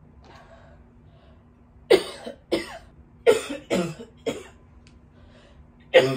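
A woman coughing hard off-camera: a run of five sharp coughs starting about two seconds in, then another near the end.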